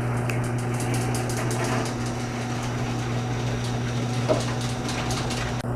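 Craftsman 139.53673SRT3 chain-drive garage door opener running as it raises the door: a steady motor hum, quiet for a chain drive, that cuts off just before the end as the opener stops.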